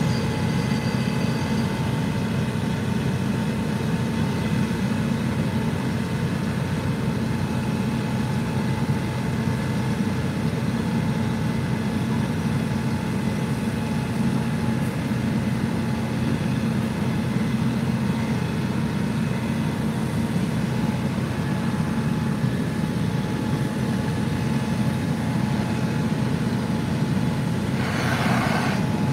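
Fire trucks' diesel engines running steadily, a low drone with a faint steady whine above it. A short hiss near the end.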